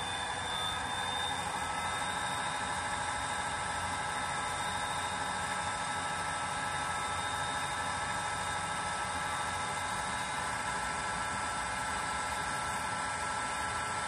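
DCC sound decoder in a Bachmann model of a British Rail Class 57/3 diesel locomotive, playing the locomotive's EMD V12 diesel engine running steadily through the model's small speaker.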